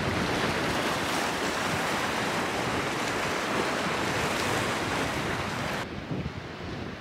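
Sea surf washing against a harbour wall and rocks, with wind rumbling on the microphone. The wash cuts off suddenly about six seconds in, leaving a quieter wind rumble.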